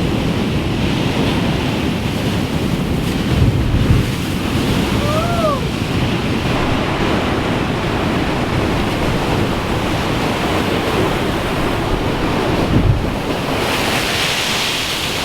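Heavy ocean swell breaking and washing against a rocky headland, with wind buffeting the microphone in gusts. A short rising-then-falling chirp sounds about five seconds in, and the rushing hiss swells near the end.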